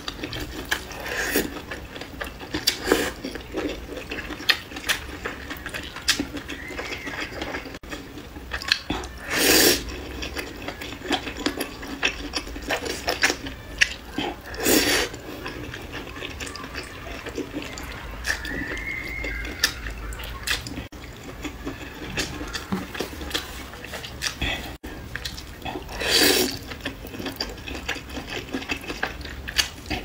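Close-miked eating of noodles and meat slices in spicy chili-oil broth: wet slurping and chewing, with three louder slurps spread through and small clicks of chopsticks.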